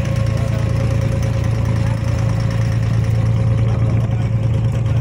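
Abra water taxi's inboard diesel engine idling with a steady low hum.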